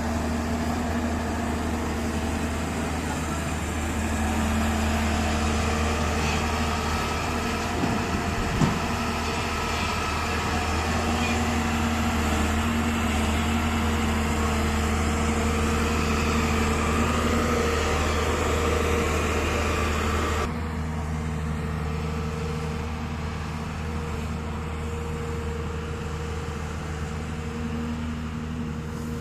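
Hyundai 215L excavator's diesel engine running steadily with a deep, even hum, and a couple of short knocks about 8 seconds in. The harsher, noisier part of the sound drops away suddenly about two-thirds of the way through, leaving a quieter, smoother hum.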